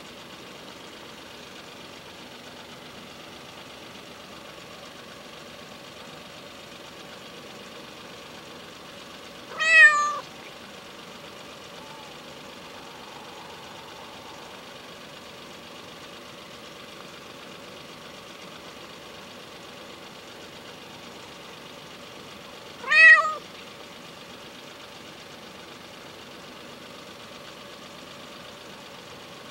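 A hungry stray cat meowing twice, about thirteen seconds apart, each a short call under a second, over a steady faint hum.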